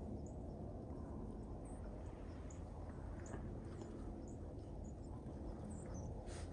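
Quiet outdoor background: a steady low rumble with scattered faint, short high-pitched chirps.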